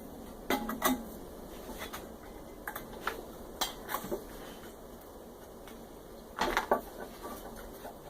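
Sharp metallic clicks and clinks from hand tools working on a microwave oven's magnetron, in a few short clusters, the loudest near the end.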